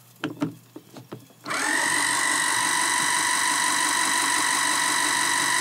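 A few light plastic knocks, then about a second and a half in a small electric motor in a countertop kitchen mixing gadget switches on and runs steadily with a whine, churning its contents until they turn bubbly.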